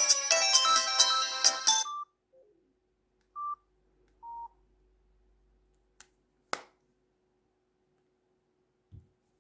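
Mobile phone ringtone, an electronic melody, cutting off about two seconds in. Two short beeps and a sharp click follow.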